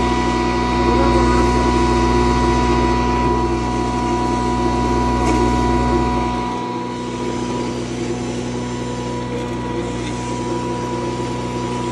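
Belt-driven chemical and fertiliser grinder running steadily while grinding, with a constant motor hum over a deep rumble. The deep rumble drops off sharply about six and a half seconds in, while the hum carries on.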